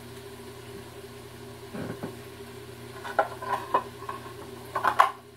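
Hard plastic parts of a food processor being handled on a countertop: a dull thud about two seconds in, then a few clicks and knocks, the loudest near the end, over a steady low hum.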